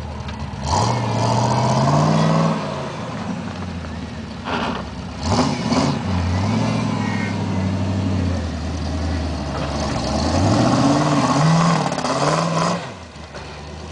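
V8 engine of a modified off-road Jeep revving hard in repeated bursts of throttle, its pitch rising and falling as it crawls and climbs a loose dirt mound. The revving drops off sharply near the end.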